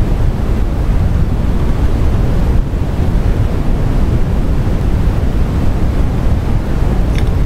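Steady low rumbling background noise with no speech, and a faint click or two near the end.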